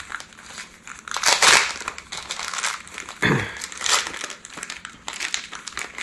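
Thin clear plastic bag crinkling in several short rustles as it is pulled off a brushless motor, loudest about a second in.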